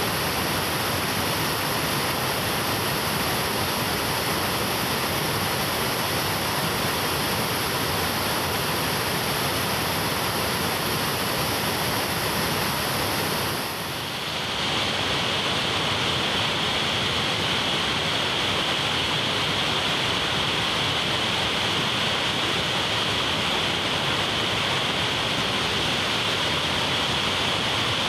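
Waterfall with heavy, fast-flowing water: a steady, even rush. About halfway through it dips briefly and comes back with a slightly different, hissier tone.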